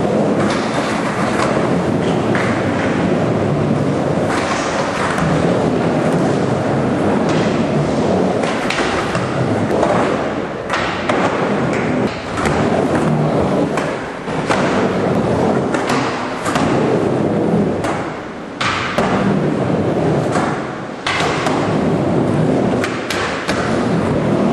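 Skateboard wheels rolling on concrete in a bowl, a steady rumble that dips briefly every few seconds, broken by sharp knocks and thuds as the board hits the coping and lands.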